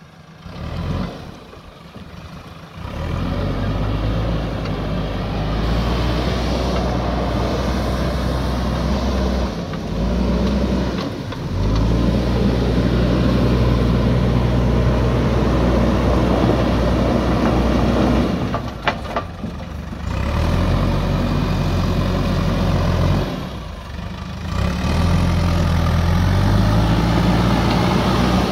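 JCB backhoe loader's diesel engine running under load as the machine drives up out of the river. It builds about three seconds in, then holds a steady drone that shifts in pitch a few times as it revs up and eases off, with a few brief dips.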